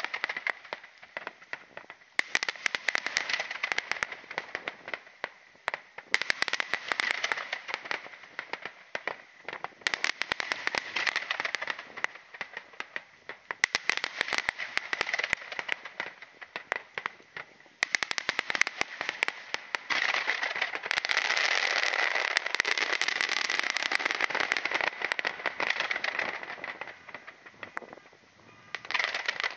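Fireworks crackling: dense, rapid popping crackle in waves of two to three seconds that recur every few seconds, with a longer, louder stretch of continuous crackle past the middle.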